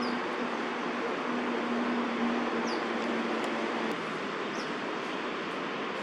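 Steady rumble of distant city traffic, with a low hum that stops about four seconds in. Three faint, short, falling high chirps from a bird come through on top.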